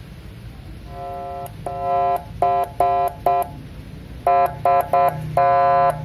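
CJB119 100-watt electronic siren sounding its horn tone in a series of short blasts, about nine, each at one steady pitch, with the last held longest near the end.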